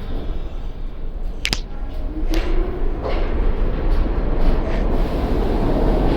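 R46 subway car: a sharp clack about a second and a half in, then the car starts to pull away. A rising motor whine comes in and a rumble builds steadily as it gathers speed.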